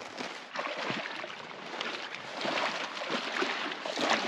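River water splashing and rushing in uneven spurts, a little louder about halfway through.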